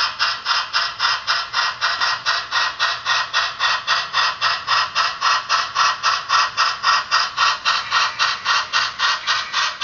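On30 model steam locomotive's sound system chuffing at an even beat of about five chuffs a second, a hissy exhaust beat from a small speaker.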